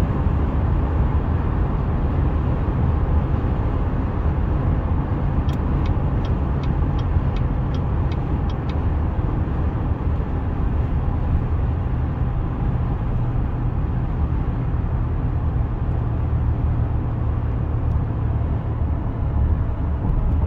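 Steady road and engine noise of a car at highway speed, heard from inside the cabin. A few seconds in comes a short run of light ticks, about three a second, lasting about three seconds.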